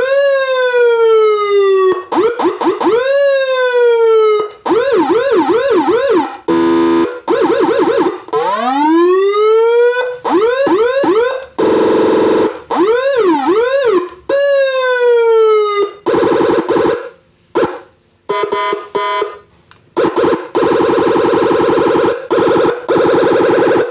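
Electronic 12-tone siren module in its low-frequency mode, sounding through a 25-watt Narae speaker and stepping through its tones every second or two: falling sweeps, fast yelps, slow rising wails, warbles and chopped two-tone patterns, with brief cut-outs between some of them.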